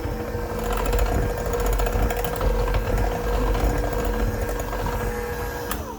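Electric mixer running steadily on low speed, beating cake batter, with a constant motor hum; it cuts off just before the end.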